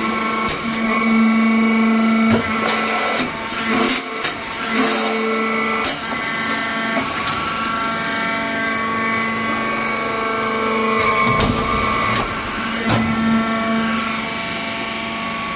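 Hydraulic salt block press running: a steady machine hum with repeated sharp knocks and clanks as the press works.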